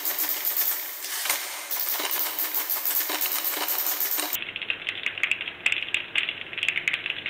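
Typewriter typing: a dense run of typebar strikes clacking against the platen. About four seconds in it cuts off abruptly and gives way to a duller, muffled texture of rapid small clicks over a faint low hum.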